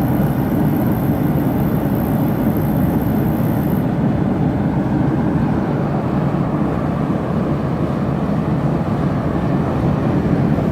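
Val6 KBE5-series infrared heater's oil burner running steadily just after ignition: the blower fan and flame make an even, steady rushing noise. A faint high whine cuts off about four seconds in.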